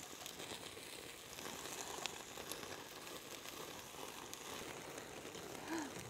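Pork belly sizzling faintly on a charcoal grill, with light crackles and ticks as fat drips onto the hot coals and flares up.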